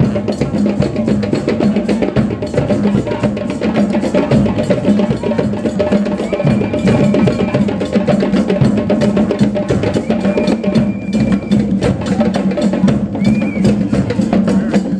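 Music with fast, busy percussion of wood-block-like clicks and drums at a steady loud level. A short high tone sounds a few times over it.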